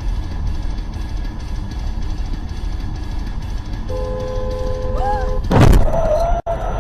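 Steady road and engine rumble inside a moving car, heard through a dashcam. A car horn sounds for about a second and a half past the middle, then a loud sudden burst of noise comes near the end.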